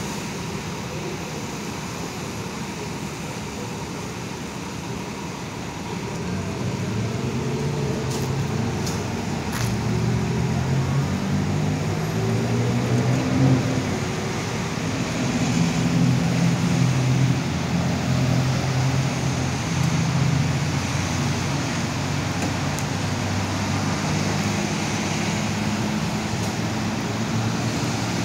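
Low rumble of vehicle engines running, growing louder about six seconds in, over a steady background of road noise.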